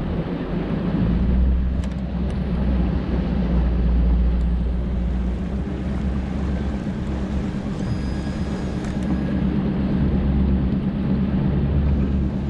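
Bass boat's outboard motor running steadily with a low, even drone.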